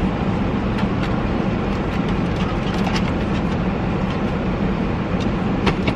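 Car air conditioning blowing on high, a steady rush of air with a low hum from the idling engine, and a couple of light knocks as a wooden lap tray is handled.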